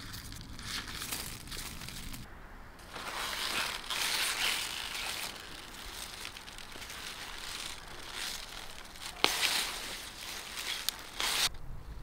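Hands working through leafy greens, pulling and snapping stalks from the soil: crisp leaf rustling and crunching in uneven bursts, with a few sharp snaps from about nine seconds in.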